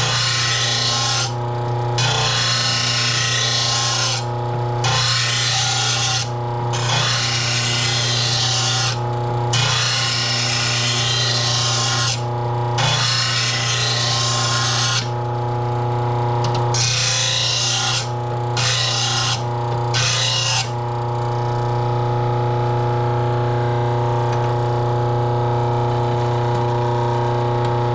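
Electric grinder sharpening a lawn mower blade: a steady motor hum under a loud grinding hiss that comes in repeated passes with short breaks. From about 21 seconds in, the grinding stops and the grinder keeps running on its own.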